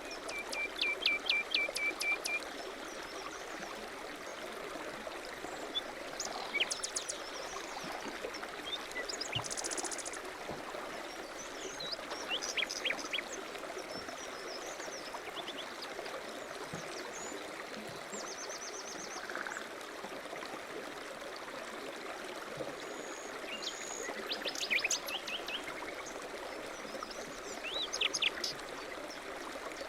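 Songbirds singing and chirping over a steady rushing hiss. One song of quick falling notes ending in a short trill comes near the start, with scattered chirps and trills through the rest.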